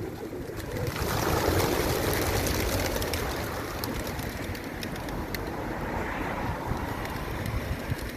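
A flock of pigeons in flight, their wings making a rushing, whirring noise that swells about a second in and then eases, with scattered sharp clicks from the wingbeats.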